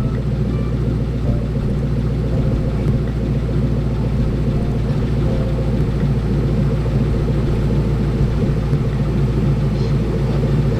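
Ford 4.6-litre four-valve DOHC V8 idling steadily through a freshly welded exhaust, the engine still cold.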